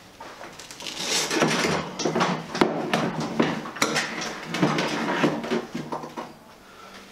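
Air-cooled motorcycle engine being turned over by hand on a wooden workbench: repeated knocks, clunks and scrapes of the metal casing against the bench top, dying down near the end.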